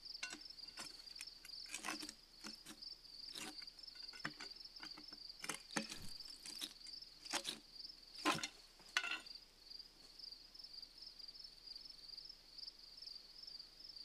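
Crickets trilling faintly and steadily, with about ten irregular sharp knocks and clinks of a steel pry bar worked in the split of a granite block, the loudest two about eight and nine seconds in.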